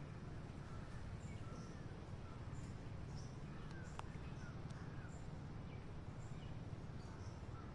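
Birds chirping faintly with many short, high calls over a steady low background rumble, with a single sharp click about four seconds in.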